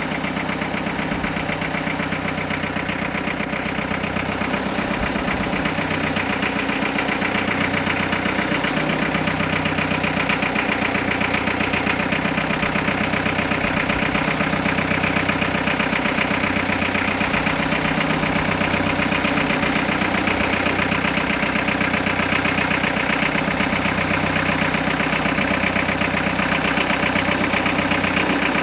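Steady, loud mechanical drone like a running engine, with a faint high whine that comes and goes.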